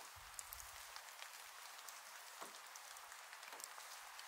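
Faint patter of scattered raindrops over a steady outdoor hiss, with a little low wind rumble in the first second.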